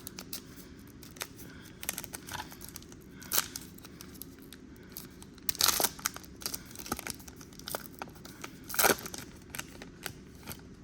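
A trading-card pack wrapper being opened by hand, with irregular tearing and crinkling rustles, the loudest about a third of the way in, past halfway and near the end.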